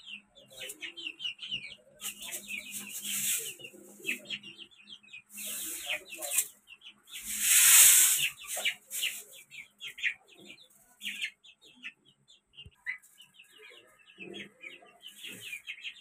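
Chickens clucking and chirping in short calls, with several bursts of wing flapping. The longest and loudest flapping comes about halfway through as two birds scuffle.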